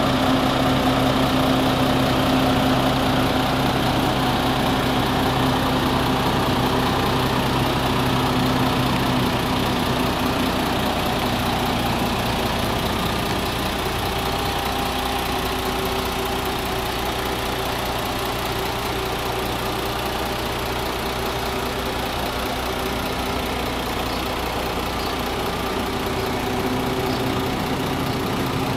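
MAN TGS 400 concrete mixer truck's diesel engine idling steadily, a little quieter from about ten seconds in.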